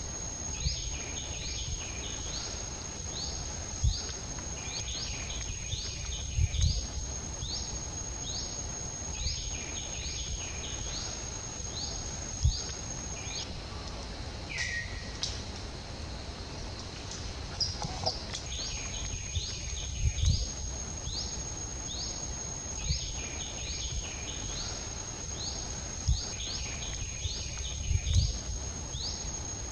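Outdoor nature ambience: a steady high-pitched whine, which breaks off for a few seconds midway, under short rising chirps that repeat one or two times a second, with occasional low thumps.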